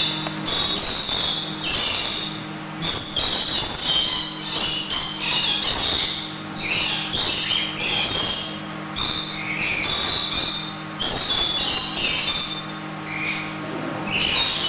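A flock of lorikeets screeching and chattering, harsh calls coming in quick overlapping bursts with short gaps, over a steady low hum.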